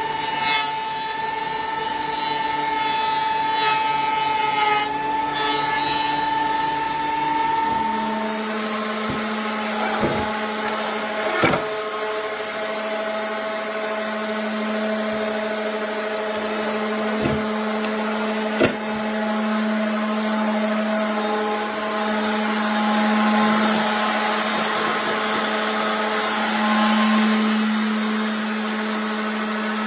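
Power woodworking machinery running steadily. About eight seconds in, the sound changes abruptly to a lower, steady running tone, with a few sharp knocks along the way.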